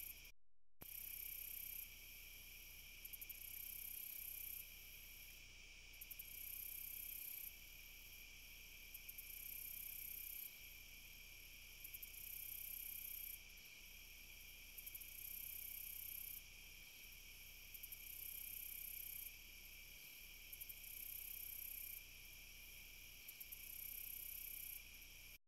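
Faint night-insect chorus: a steady high trill with a shriller pulsing call over it, coming in bouts of a second or two about every three seconds, each starting with a few quick ticks. The sound drops out completely for a moment shortly after the start.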